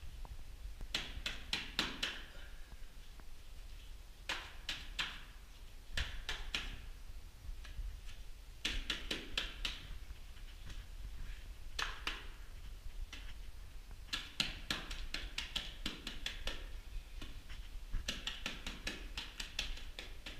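Wet cement-sand plaster being slapped onto a brick wall by a gloved hand: clusters of quick wet smacks, a few in a row, coming every couple of seconds.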